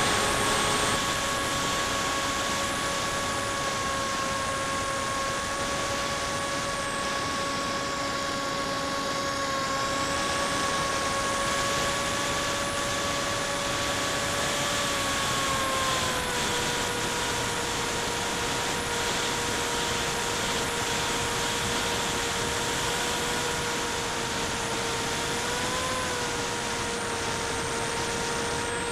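Electric motor and propeller whine of an FPV aircraft heard from its onboard camera, a steady pitched hum over wind rush. The pitch drops slightly about halfway through and rises briefly near the end as the throttle changes.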